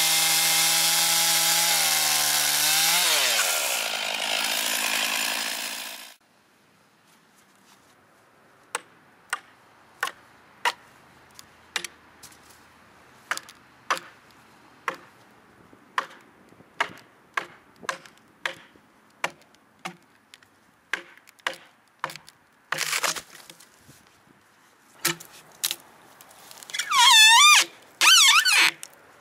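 A chainsaw running, its pitch rising about three seconds in, then cutting off about six seconds in. It is followed by scattered sharp clicks and knocks, and near the end by a brief wavering high-pitched squeal.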